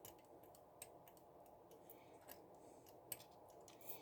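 Near silence with a few faint, scattered clicks: small handling noises as a replacement transistor's legs are worked into the holes of a circuit board.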